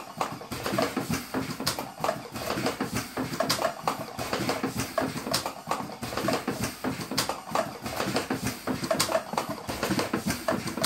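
Air-powered automatic cigarette rolling machine running, with a sharp click about every two seconds as each rolling cycle fires, over a continuous busy mechanical noise.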